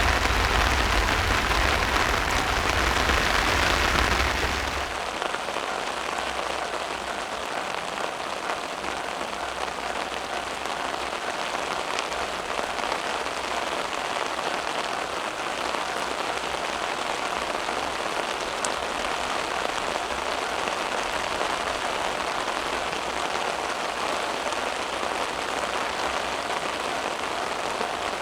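Steady rain falling. For the first few seconds a louder low rumble of a passing vehicle dies away, about five seconds in, leaving only the rain.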